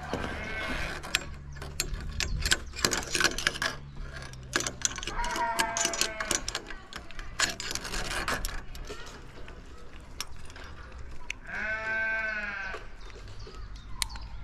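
Metal climbing safety clips and carabiners clicking and rattling against the steel cables of a high ropes course, with two drawn-out high calls, the louder one near the end.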